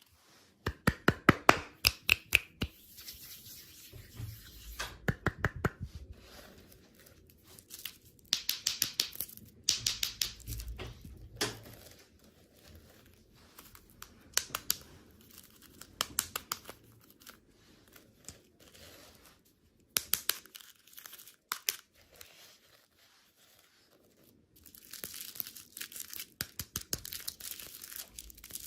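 Plastic candy wrappers being torn open and crinkled by hand, in bursts of crackling with short pauses between them.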